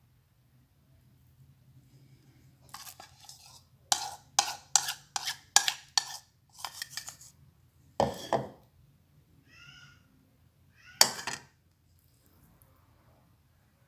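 A quick run of about nine sharp clinks and knocks of hard objects, dish- or utensil-like. A heavier knock follows about eight seconds in, then a single last clink about three seconds later.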